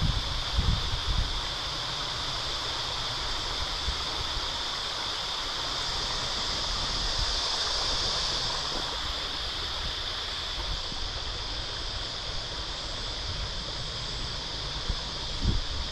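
Steady outdoor ambience: an even hiss with a high, steady drone running through it, and low wind rumble on the microphone at the start and again near the end.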